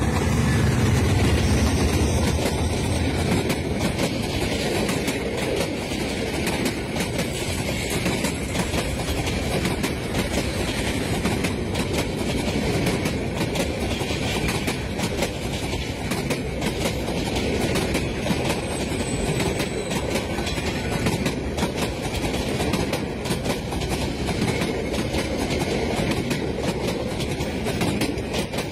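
Bangladesh Railway MEI-15 diesel-electric locomotive passing close by, its engine rumble strong for the first few seconds, then a long train of passenger coaches rolling past with a rapid, steady clickety-clack of wheels over the rails.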